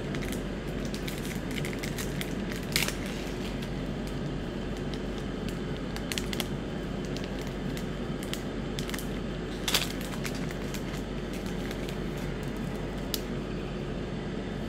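Foil wrapper of a Magic: The Gathering booster pack being torn open and handled, giving a few sharp crinkling crackles spread out over a steady background hum.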